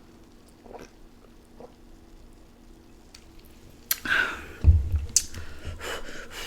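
A person drinking fizzy soda from a two-liter bottle, with mouth and swallowing sounds. There are faint swallows at first; then, about four seconds in, a sharp click and a run of louder gulping noises with a low thump.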